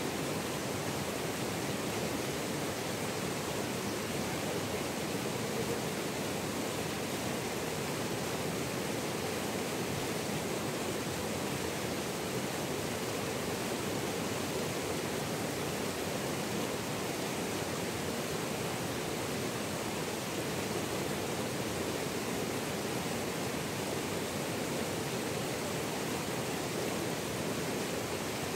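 River rapids rushing over rocks into a pool: a steady, unbroken rush of water.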